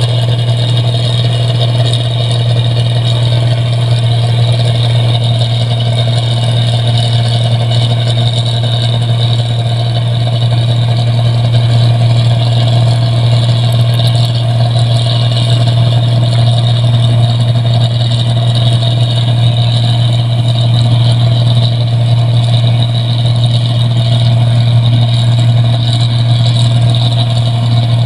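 Rice combine harvester running steadily while cutting paddy, a loud even engine drone with a strong low hum that holds without a break.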